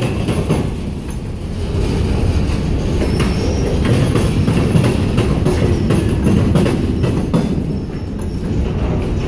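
Empty covered hopper cars of a freight train rolling by: a steady low rumble of steel wheels on the rail, with scattered clicks and brief faint high wheel squeals.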